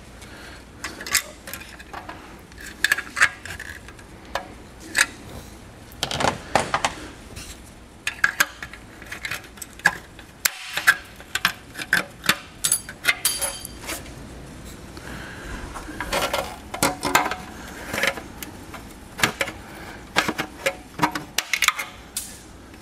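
Irregular metallic clicks, clinks and taps of a hand tool working sheet metal in a car's engine bay, with a brief high ringing about halfway through.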